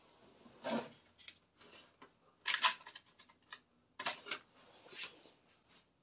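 Hands handling small parts at a workbench: a run of irregular rustles and scrapes, each lasting a fraction of a second.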